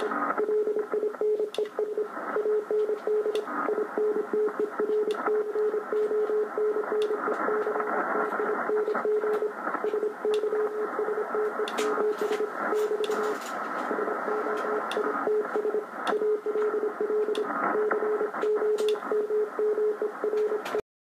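Morse code (CW) signal on the 40-metre band coming from the speaker of an Icom IC-735 HF transceiver. A single beat tone is keyed on and off in dots and dashes over receiver hiss, with scattered static crackles. The audio cuts off suddenly near the end.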